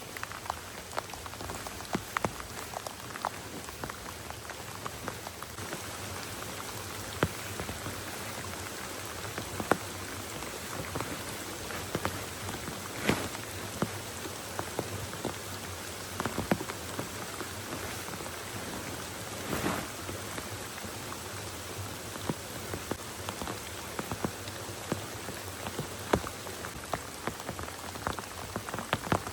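Heavy rain falling steadily, with many sharp drop impacts landing close by.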